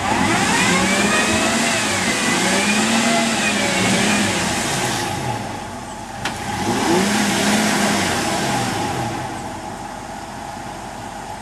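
Toyota Tacoma pickup's engine revving up and down in two spells as it pushes through deep mud ruts, with a steady hiss beneath. A single sharp click comes a little past six seconds in.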